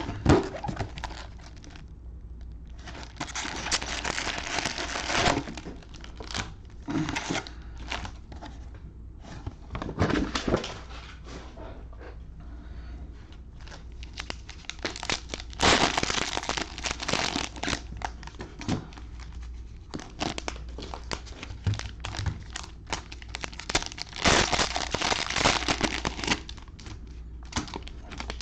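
Plastic cello-pack wrappers of Panini Prizm football cards crinkling and tearing as the packs are opened by hand. The crackling comes in three longer stretches, with scattered clicks and rustles between them.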